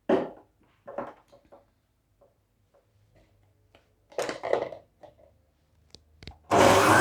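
A few knocks and clatters, then about six and a half seconds in an electric juicer motor switches on and runs loudly, with a whine rising as it spins up.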